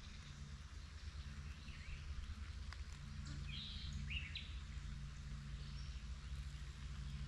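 Faint outdoor ambience: a few short bird chirps around the middle, over a low steady hum.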